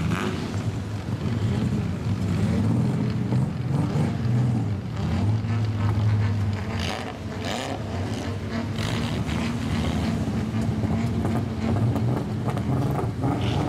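Lowered old Japanese sedan with a loud straight-piped exhaust, its engine rumbling low as it rolls slowly, the note rising and falling a little with the throttle.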